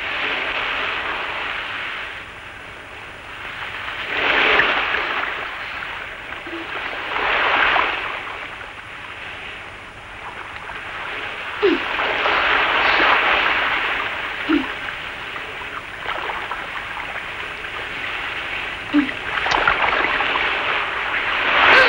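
Surf breaking on a sandy beach: the rushing wash of waves swells and falls back every few seconds.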